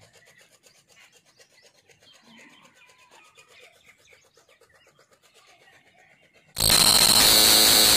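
Near silence with faint rapid clicks, then, about six and a half seconds in, a loud, even burst of hissing noise with a thin high whistle in it, lasting about a second and a half and cutting off abruptly.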